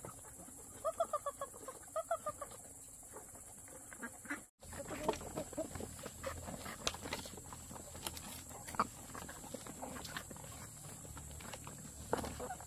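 Chickens clucking, a few short calls in the first couple of seconds. After a brief break, there are scattered clicks and knocks of handling over a low hum.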